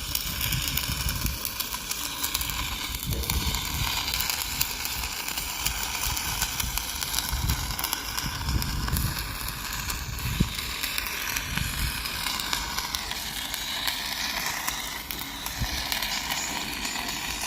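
Arc welding with a stick electrode: the arc crackles and hisses steadily while a bead is run.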